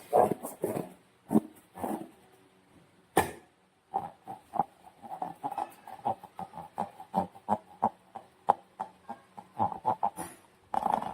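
Sticky slime squelching as it is worked, a run of short, irregular wet squelches, several a second, with a sharp click about three seconds in.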